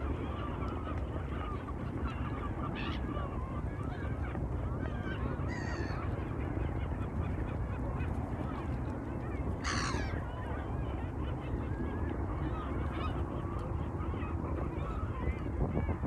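A flock of migratory waterbirds on a lake calling, with many short honking and squawking calls overlapping. One louder sweeping call stands out about ten seconds in, over a steady low background rumble.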